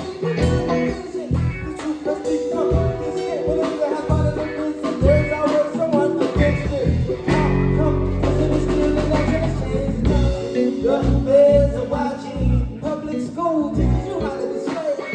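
Live band music with electric guitar, bass and drums playing a steady beat, with a held low bass chord about halfway through.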